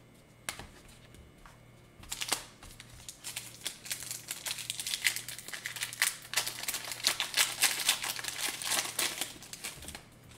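A foil trading-card pack wrapper being torn open and crinkled in the hands: a dense crackle of many small sharp sounds starting about two seconds in and stopping just before the end, after a couple of faint clicks.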